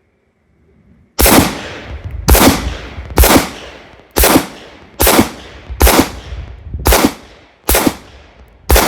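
Handgun fired nine times at a steady pace of about one shot a second, each shot loud and sharp with a short echo trailing off.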